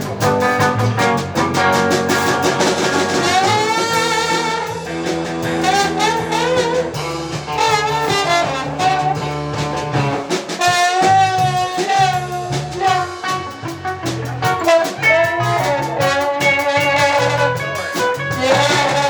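Band playing upbeat swing-style jazz: a wavering lead melody line with vibrato over a steady bass and a regular drum beat.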